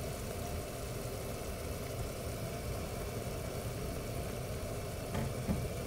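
A steady low hum with a faint hiss above it, and a faint click about five seconds in.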